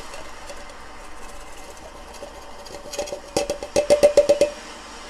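Stainless steel distillation column struck by a quick run of about a dozen taps, about three seconds in, each ringing at the same metallic pitch. Before that, faint handling clicks.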